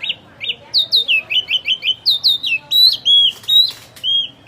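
A wambi songbird in full song: rapid clear whistled notes, mostly sweeping down in pitch, repeated in changing runs of several notes a second, with a brief harsh scratchy note near the end.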